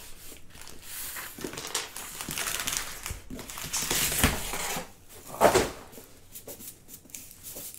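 A cardboard mailing tube being slit open with a cutter and pulled apart, then a rolled canvas being lifted out of it: paper and cardboard scraping and rustling, with one louder rustle about five and a half seconds in.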